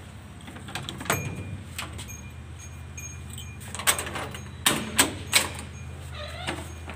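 Several sharp knocks and clatters, one about a second in and a cluster of three or four between about four and five and a half seconds, with a short squeak falling in pitch near the end, over a steady low hum.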